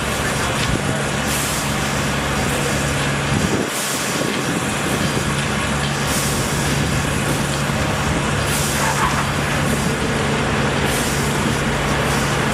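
A heavy engine running steadily at a constant speed, with a short burst of hiss repeating about every two and a half seconds, typical of heavy construction machinery at work.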